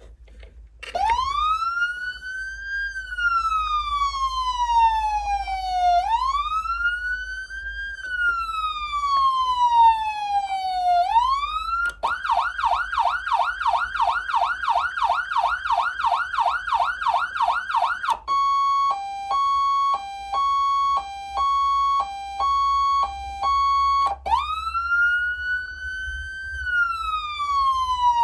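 Whelen 295SLSA6 200-watt electronic siren amplifier sounding its tones in turn. About a second in it starts a slow wail that rises and falls twice. It then switches to a fast yelp of about three cycles a second, then to a hi-lo tone alternating between two pitches, and near the end the wail starts again.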